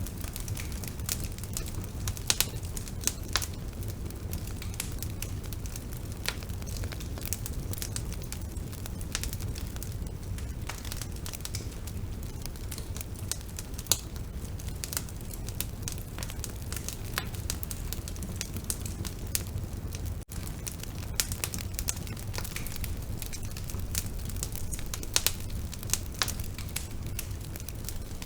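Bonfire burning: a steady low rumble of flames with sharp, irregular crackles and pops throughout, and a momentary dropout about twenty seconds in.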